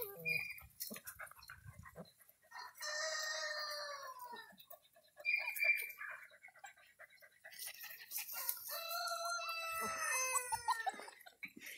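A rooster crowing twice, each crow about two seconds long and dropping in pitch at the end, with short high squeaks in between.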